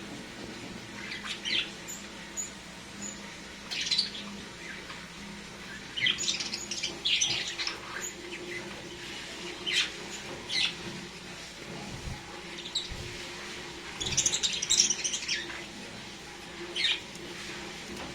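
Lovebirds chirping in short, irregular bursts, a dozen or so calls, with a louder flurry of chirps near the middle and another about three-quarters of the way through, over a steady low hum.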